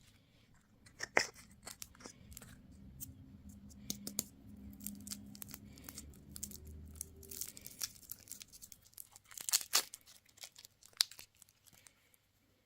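Candy packaging being torn open and crinkled by hand: a run of sharp crackles and rips, loudest about a second in and again near ten seconds.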